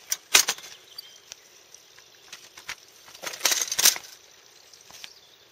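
A folding golf trolley being opened out: sharp clacks from its metal frame and wheels just after the start, then a louder burst of clattering about three and a half seconds in as it is set up on the gravel.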